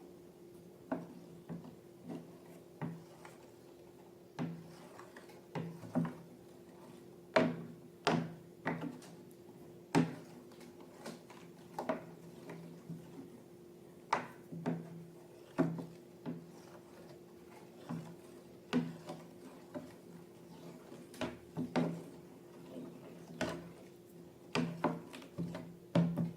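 Slime being squeezed and worked by hand, giving an uneven run of short squelches and pops, roughly one a second, over a steady low hum.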